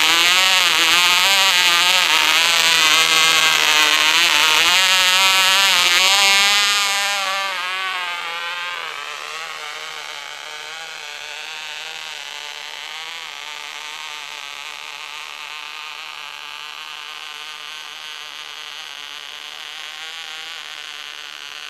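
Vintage OK Cub .049 glow engine running flat out, a loud high-pitched buzz that wavers in pitch. About seven seconds in it fades to a fainter steady buzz as the glider flies away. It is a gummed-up engine, and the owner says this is what a gummed-up motor sounds like.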